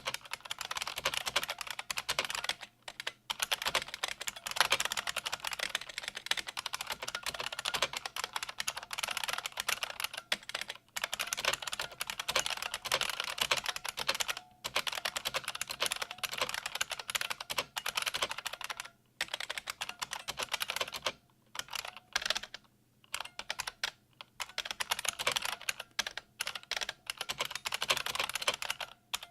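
Fast continuous typing on an IBM Model M122 keyboard with buckling-spring switches, a dense clatter of sharp clicks broken by a few short pauses.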